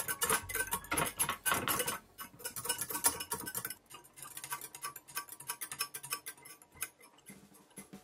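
Wire whisk beating egg-yolk hollandaise sauce in a glass bowl over a pan of hot water, its wires clicking fast and steadily against the glass. The clicking is loud for about the first two seconds, then softer and sparser.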